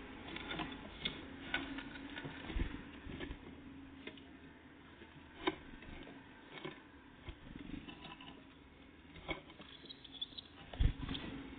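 Irregular light taps and clicks of great tits and blue tits pecking and hopping about at a bird feeder, with a heavier thump near the end.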